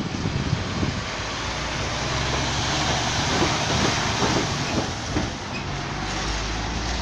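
MAN hook-loader skip lorry driving slowly over a railway level crossing: its diesel engine running and its tyres knocking over the rails, loudest as it passes close by.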